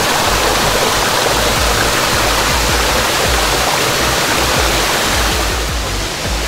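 Kaaterskill Falls heard from its base: a steady, loud rush of falling water, with the water running low.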